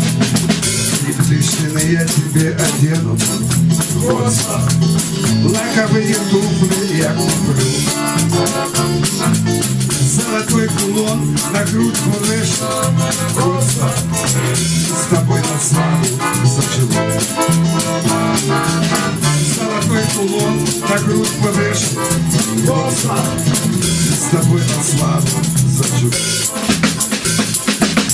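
Instrumental break played by a live band: a button accordion with acoustic guitar, drum kit and a hand shaker keeping a steady rhythm.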